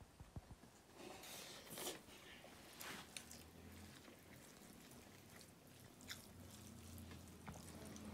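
Faint eating sounds: fingers mixing rice on steel plates, with scattered small clicks and rustles and some chewing.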